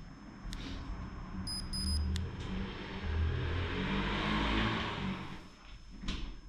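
A few short electronic beeps from the XOSS G+ GPS bike computer about one and a half to two seconds in, as its buttons are pressed. Then a broad rushing noise swells and fades over about three seconds.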